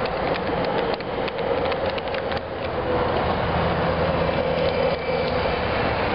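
Large-scale garden-railway train rolling past: the freight car's metal wheels click over the rail joints in a quick run of clicks for the first couple of seconds. Then the steady hum of the model locomotive's motors and gearing grows stronger as it comes up.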